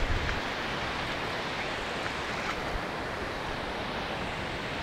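Steady wash of ocean surf breaking on the beach, with a low wind rumble on the microphone.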